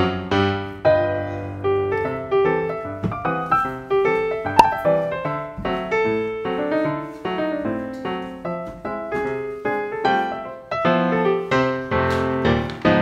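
Background music: a piano-like keyboard tune of quickly struck notes, each fading after it sounds, with one sharp click about four and a half seconds in.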